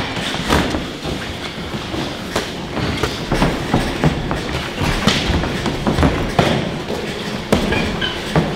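Boxing gloves landing in sparring: irregular sharp thuds, about one a second, over a steady background of gym noise and shuffling feet on the ring canvas.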